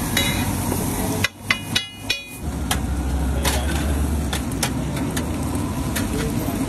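Metal spatula clanking and scraping on a large flat griddle as halved boiled eggs fry in green chilli paste, with irregular sharp knocks over a steady frying hiss. A quick cluster of knocks comes a little over a second in.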